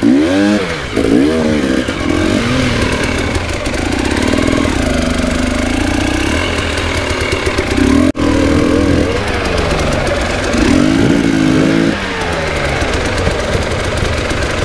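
KTM 300 EXC TPI two-stroke enduro motorcycle engine being ridden over rough terrain, the throttle opened and closed again and again so the engine note rises and falls in short revs.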